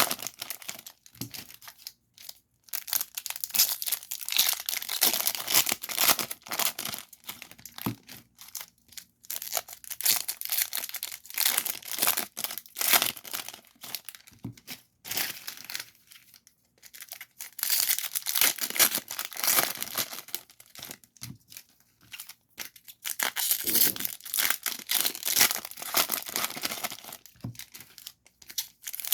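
Foil wrappers of 2023 Topps Series 2 retail trading-card packs being torn open and crinkled, in quick irregular bursts with short pauses between packs.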